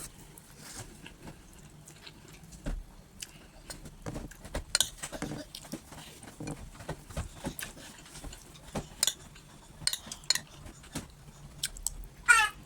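Spoon clinking and scraping on a plate with mouth sounds of eating rice and stew, in scattered short clicks and ticks. Near the end comes a brief high, gliding, voice-like squeal.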